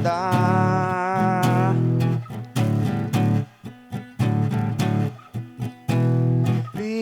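A man's voice holds a long, wavering sung note on the last word of a line, "andar". Then a guitar plays plucked notes and chords alone, with short breaks between phrases.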